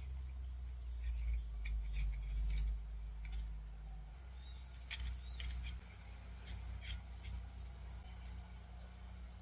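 Small metallic clicks and light scrapes at irregular intervals, over a low steady hum: the cutting disc of a 12-volt mini angle grinder being changed by hand.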